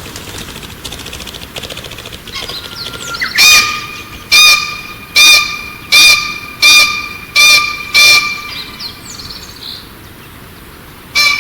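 A bird calling a run of about seven loud, evenly spaced notes, roughly one every three quarters of a second, then two more near the end, with fainter chirping before them.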